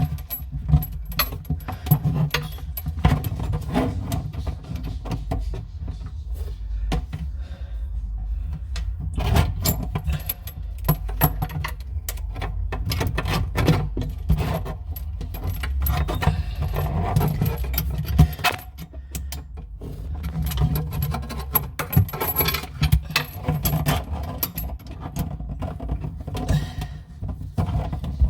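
Scattered small metallic clinks and knocks over a steady low rumble: a faucet's water supply line fitting being twisted on by hand under a bathroom sink.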